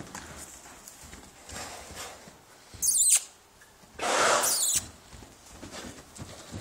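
A horse running and bucking loose on arena sand: soft, muffled hoofbeats, then a short, loud, high-pitched cry about three seconds in and a longer, breathy outburst about a second later.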